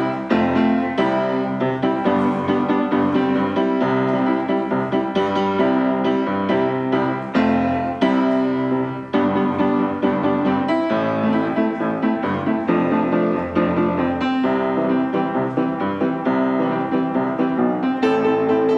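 Piano music with many notes struck in quick succession.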